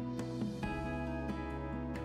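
Gentle background music with plucked guitar notes.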